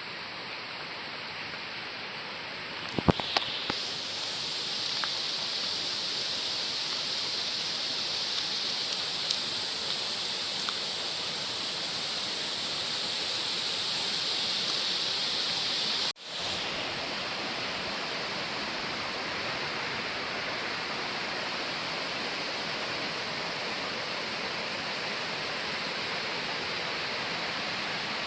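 Steady rushing of a waterfall, a broad even wash of falling water. A few sharp clicks stand out about three seconds in, and past the middle the sound cuts out for a moment before it resumes.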